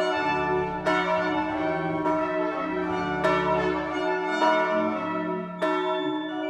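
Church bells pealing, a new stroke a little over once a second, each ringing on under the next.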